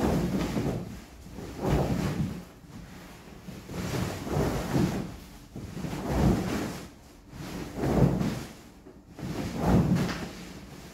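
Artificial-grass rug being heaved up and shaken out to clean it, six flaps in a row, each a swell of rustling and flapping about every second and a half to two seconds.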